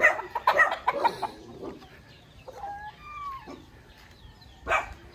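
Chickens clucking: a quick run of loud clucks in the first second, then a few softer scattered calls and one more sharp cluck near the end.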